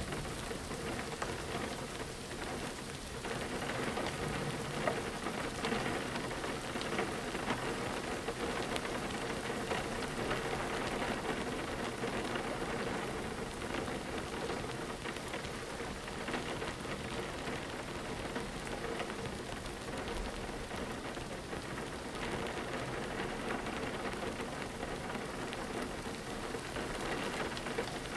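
Steady rain falling on a window, a continuous patter of many small drops.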